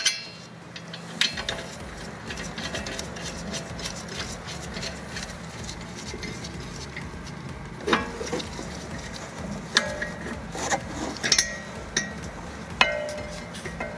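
Irregular metallic clinks and scraping of brake hardware as the rear caliper bracket and its bolts are fitted by hand, with several sharper clinks in the second half. A low steady hum runs underneath from about a second in.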